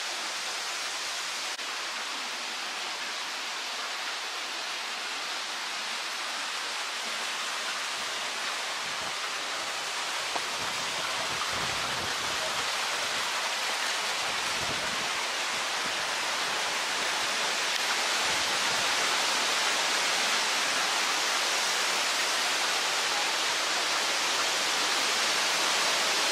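Rushing water of a small stream running steadily, an even wash of noise that grows slightly louder in the second half. A few low rumbles on the microphone around the middle.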